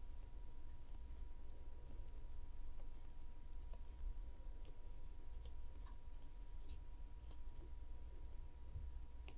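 Faint, irregular small clicks and ticks of thick 3.5 mm craft wire being coiled by hand into a tight flat spiral, over a steady low hum.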